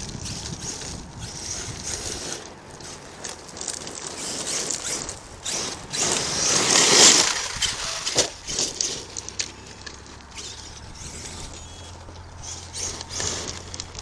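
ARRMA Kraton 8S electric RC truck running over dirt, with a loud rush of noise about six to seven seconds in and a few sharp ticks just after. A steady low hum runs through the second half.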